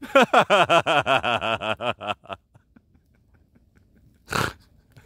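A man laughing in a rapid run of pitched 'ha-ha-ha' bursts, about eight a second for two seconds, then a short breathy gasp about four seconds in.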